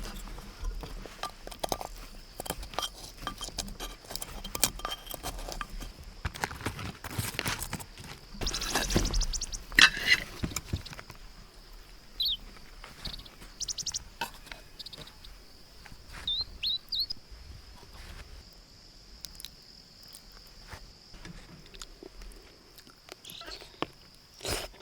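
Scattered knocks and clinks, denser around the middle, over a steady high insect drone, with a few short bird chirps midway.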